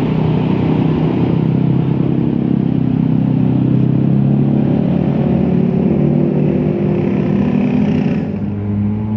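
Large bus engine running loud as the bus passes close and pulls away, its engine note rising a little partway through. The higher hiss cuts off suddenly near the end.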